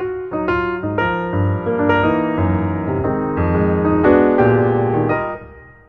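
Background piano music: a melody of separate notes, dying away near the end.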